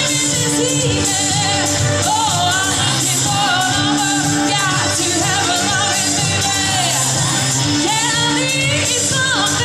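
A woman singing a pop-disco song live into a handheld microphone over loud accompanying music through a PA, with long bending held notes.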